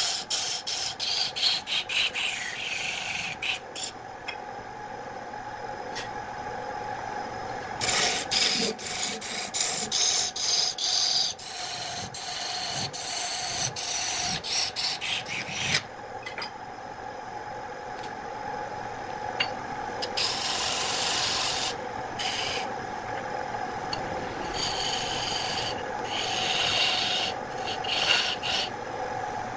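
Electric wood lathe running with a steady hum while a hand-held gouge cuts into a spinning wooden vase blank, throwing off shavings. The cutting comes as a hissing, rasping scrape in several spells, with quieter stretches of just the motor in between.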